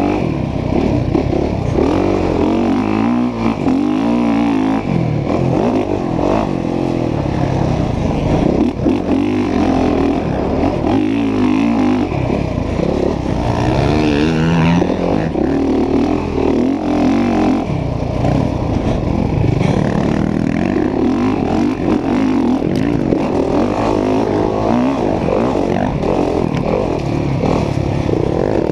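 Dirt bike engine under hard riding on a motocross track, the revs rising and falling again and again as the rider works the throttle and gears.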